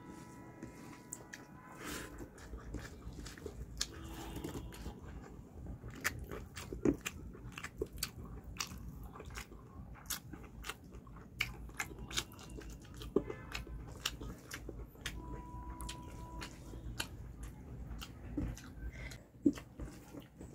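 A person eating rice and fish curry by hand, close to the microphone: chewing with many short, sharp wet clicks.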